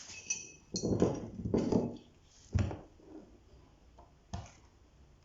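Irregular clatter of small hard objects being handled: a brief ringing metallic clink, then a cluster of knocks and two more single sharp knocks.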